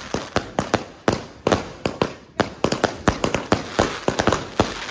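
Consumer firework cake on the road firing a rapid barrage: an irregular string of sharp bangs, about three a second, with crackling between them and a brief lull about two seconds in.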